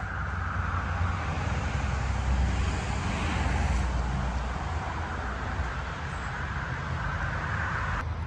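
Steady outdoor rushing noise with a low rumble, swelling a few seconds in and cutting off sharply near the end.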